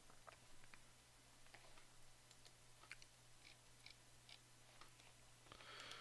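Near silence: faint room tone with a steady low hum and scattered faint clicks of a computer mouse, then a soft breath near the end.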